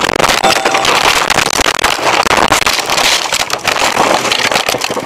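A car rolling over, heard from inside the cabin: a loud, continuous jumble of crashing, scraping and rattling impacts as it tumbles across the snowy roadside, dying down about five seconds in.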